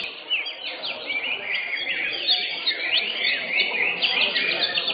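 Cucak hijau (greater green leafbirds) singing together, a dense stream of overlapping quick chirps and short whistled phrases, over a low murmur underneath.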